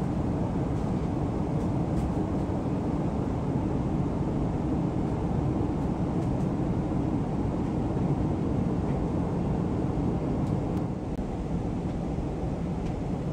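Steady cabin noise inside a Boeing 777-300ER airliner descending toward landing: a low, even rumble of GE90 engine and airflow noise, easing slightly about eleven seconds in.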